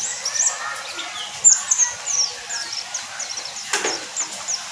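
White-eye (pleci) singing: a quick run of short, high, falling chirps. A sharp knock sounds once, a little before the end.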